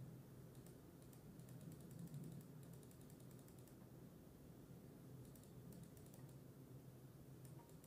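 Faint typing on a computer keyboard, in two short runs of clicks, the first about half a second in and the second past five seconds, over a low steady hum.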